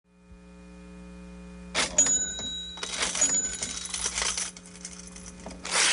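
Cash register sound effects: a series of clattering cash-register strokes with brief bell rings and coin jingles, starting about two seconds in, over a low steady hum.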